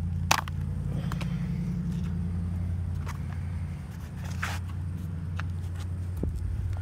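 A steady low engine hum, as of a car idling, with a few sharp scuffs and taps of a worn leather boat shoe on asphalt as a foot is worked into it; the loudest tap is about a third of a second in.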